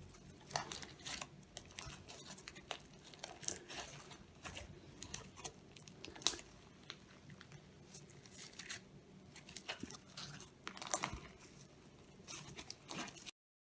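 Slime being stretched and squeezed by hand, giving irregular sticky crackles, pops and tearing sounds. The sound cuts off abruptly near the end.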